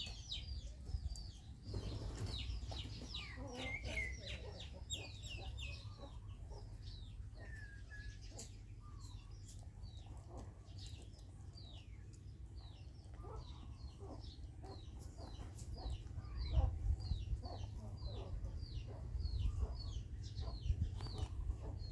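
Chickens cheeping: a continuous run of short, high, falling peeps several times a second, over a low rumble.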